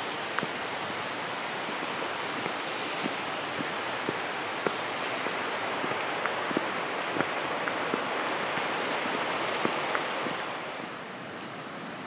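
Steady rushing of falling or flowing water, with footsteps about every half second on top. The rushing grows quieter about ten and a half seconds in.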